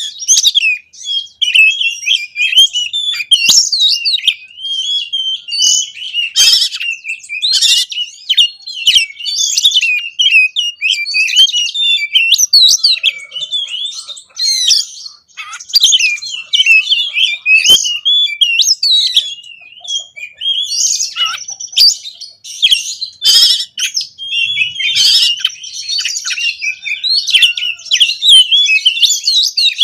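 Oriental magpie-robin (kacer) in full song: a rapid, nonstop stream of varied whistles, chirps and harsh clicking notes, packed with mimicked phrases of other birds, the frantic 'konslet' style that bird keepers use as a lure to set other kacer singing.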